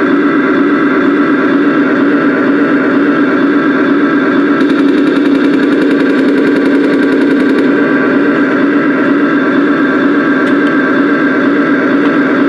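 Remote-control KV-2 tank toy's sound unit playing a steady, loud engine-idle sound, with a faint high whine for a few seconds midway.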